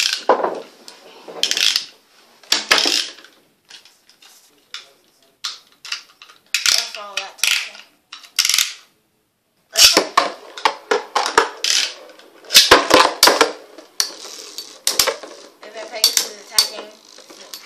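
Beyblade spinning tops: plastic and metal clicking and rattling while they are handled and fitted to their launchers, then, after a short pause, the two metal-wheeled tops clash in a plastic stadium with rapid metallic clicks and a spinning hiss.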